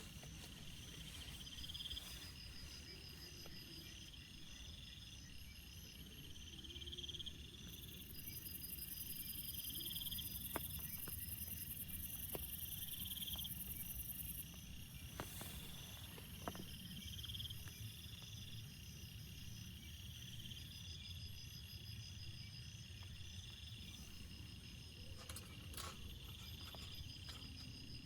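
Crickets and other insects calling: high pulsed trills that repeat every couple of seconds, with a continuous very high buzz from another insect joining about a third of the way in and stopping about halfway. A low steady background noise and a few faint ticks lie under it.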